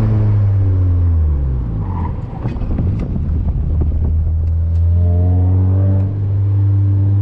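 Honda Accord wagon's F22B1 four-cylinder engine on the road: revs fall over the first two seconds, then comes a rougher stretch with a few sharp clicks. About five seconds in the revs climb again and settle into steady running.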